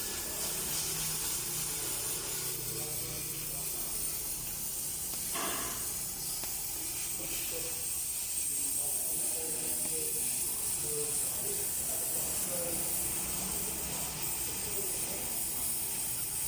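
Steady high-pitched hiss with faint background voices, broken by a short sharp noise about five seconds in.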